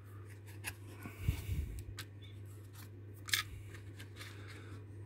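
Faint small clicks and scrapes of fingers working a tiny metal rail joiner (fish plate) onto the end of a length of model railway flexi track, with a sharper click about three seconds in. A steady low hum runs underneath.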